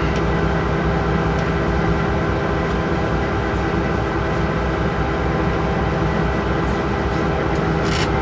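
Diesel freight locomotive heard from inside its cab: a steady engine drone and rumble with constant tones. A short hiss sounds near the end.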